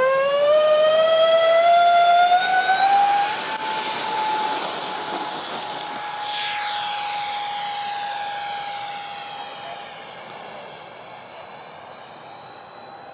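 Twin electric ducted fans of a Freewing Su-35 model jet whining at full throttle on the takeoff roll. The pitch climbs steadily over the first few seconds, then holds as the jet lifts off and passes, and the whine fades as it climbs away.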